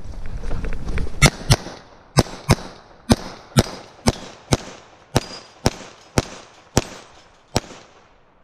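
A pistol fired thirteen times during a timed match stage, in quick pairs and singles about half a second apart.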